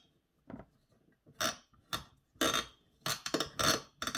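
Irregular sharp clicks and clinks, about eight in four seconds, from the stock CPU cooler's mounting hardware as it is worked and tightened down, the weird noises the cooler makes.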